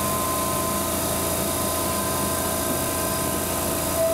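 Electric train at a station platform: a steady mechanical hum with a few thin, steady whining tones over it.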